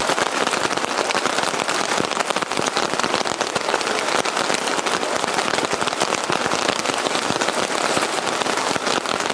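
Rain falling on a tent, a dense, steady patter of countless drops.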